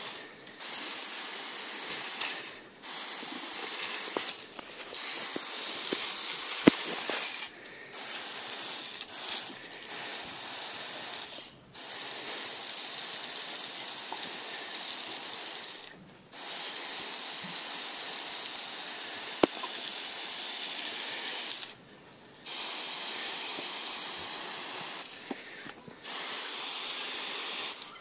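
Garden hose spray nozzle hissing as it sprays water, with a dozen or so short breaks where the spray stops for a moment. Two sharp clicks stand out, the louder about a quarter of the way in.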